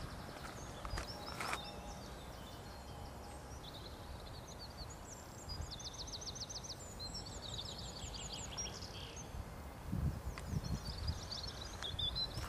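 Small songbirds singing, with quick chirps and fast trills of rapidly repeated high notes. A person's footsteps thud on rough ground near the start and again near the end.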